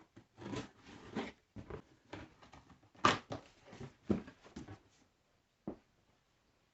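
Cardboard box being opened by hand: a run of irregular scraping and rustling sounds, the loudest about three seconds in, then a single short knock near the end.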